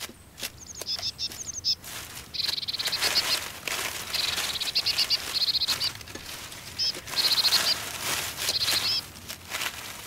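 Dry leaves rustling and crackling as a hedgehog roots through leaf litter, with several short, rapid, high-pitched chirping trills over the rustle.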